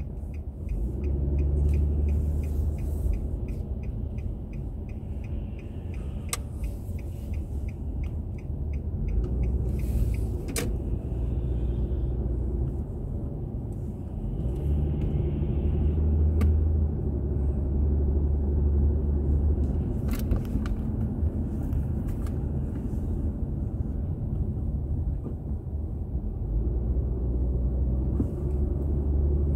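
Car engine and road rumble heard inside the cabin, swelling and easing with the traffic. For the first several seconds the turn-signal indicator ticks evenly, about three ticks a second, ahead of a turn.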